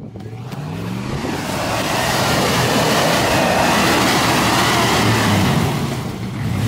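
A 4x4 SUV's engine revving as it climbs a wet, rocky trail, its tires spinning and throwing mud and water. The engine pitch rises in the first second, and a rushing noise of tires and spray fills the middle.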